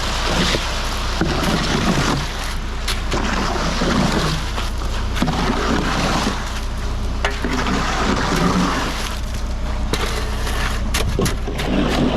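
A concrete truck's engine running, with an uneven rushing, watery noise over the top that swells and fades every second or two.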